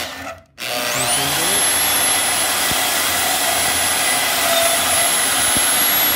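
Portable bandsaw (Porta-Band) cutting through a coiled helix of steel bar clamped in a vise. A short run stops briefly near the start, then the motor starts again with a rising whine and runs steadily at full speed as the blade saws through the coils.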